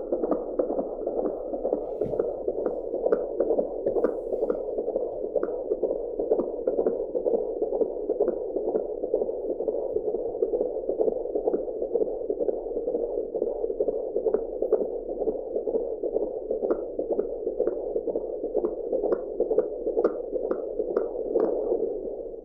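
Fetal heartbeat picked up by an AngelSounds handheld Doppler: a fast, even pulsing of about two to three beats a second over a steady wash of noise.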